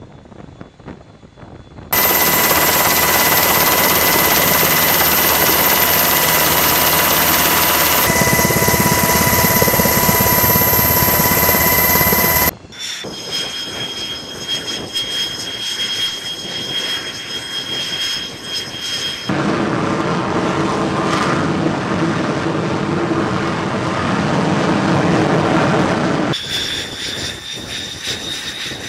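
Jet turbine engines running on an aircraft carrier's flight deck: loud and steady, with high steady whining tones over the rush. The sound changes abruptly several times, dropping and returning at each edit between shots.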